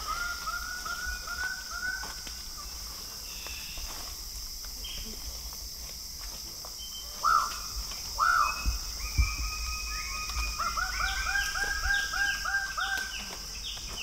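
Male lesser birds of paradise calling at a display lek: loud arched calls repeated in runs at about four a second, a run near the start and another in the second half, with two louder single calls in the middle and higher calls from other birds overlapping.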